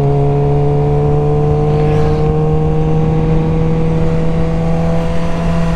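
Suzuki GSX-R600 inline-four engine running under way, its revs climbing slowly and steadily with an even, unbroken note.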